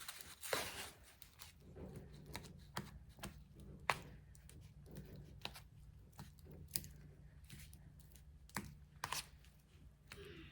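Scattered light clicks and knocks of a utensil against a bowl as diced avocado is stirred with lemon juice and salt, over a faint steady low hum.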